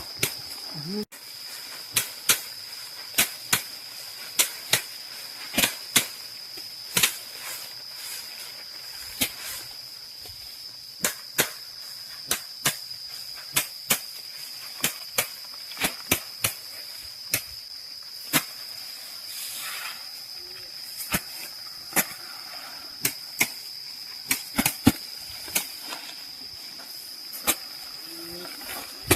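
A steady, high-pitched insect drone, such as crickets or cicadas, runs under a series of sharp knocks that come at uneven spacing, roughly one a second.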